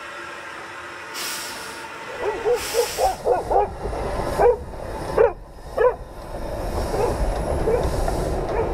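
Beyer-Garratt steam locomotive NG143 passing slowly, with a deep rumble and two short bursts of steam hiss. Over it comes a quick run of short high-pitched calls, loudest about four to six seconds in.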